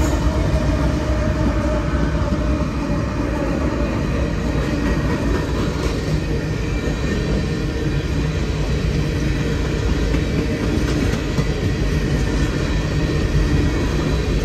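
Empty coal hopper cars of a freight train rolling past steadily, the continuous noise of steel wheels on the rails.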